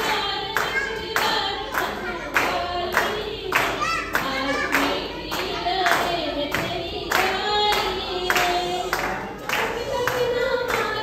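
A small group of women singing a song into microphones while hands clap along in a steady beat, about two claps a second.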